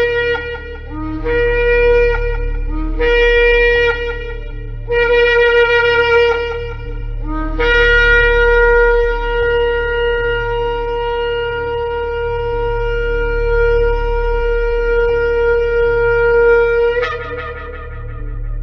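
Shofar (ram's horn) blown in a series of blasts: four shorter notes, each scooping up into a steady tone, then one long held blast of about nine seconds that breaks sharply upward to a higher note near the end.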